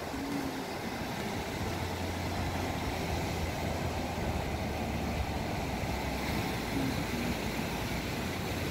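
Atlantic Ocean surf washing ashore, a steady rush of waves with a low rumble underneath.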